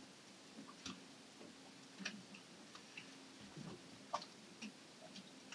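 Quiet, with faint, irregular small clicks and light taps, roughly two a second, over a faint steady low hum.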